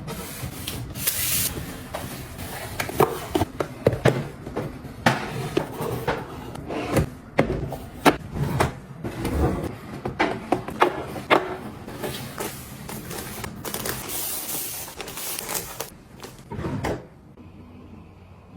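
Hands handling and setting down small objects: a quick run of clicks, taps and rustles, which stops about 17 seconds in and leaves quiet room tone.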